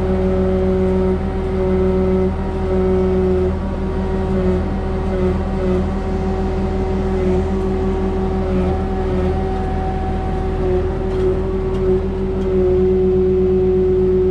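Hydraulic pile-pressing rig's engine and hydraulic pump running with a steady droning hum, getting louder about twelve seconds in.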